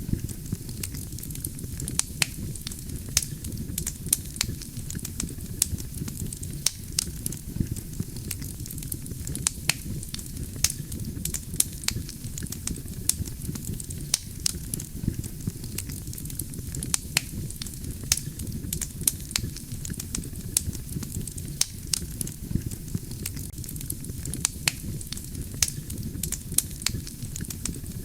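Campfire burning: wood fire with a steady low rumble of flames and frequent sharp crackles and pops from the burning logs.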